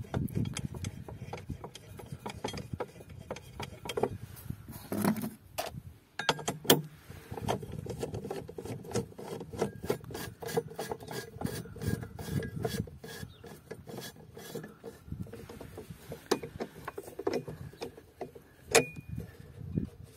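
Ratchet socket wrench clicking in fast runs as the nut on the battery clamping-plate stud is tightened, with a few sharper metal knocks in between.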